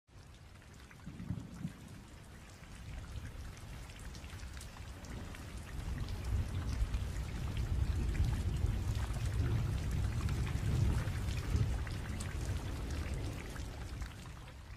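Rainfall sound effect: steady rain patter with a low rumble of thunder that builds through the middle and fades toward the end.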